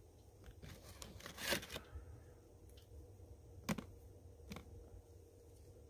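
Faint handling sounds of a metal spatula and fingers laying cooked bacon strips onto a paper plate: a few light clicks, the sharpest about one and a half seconds in and two more near four seconds.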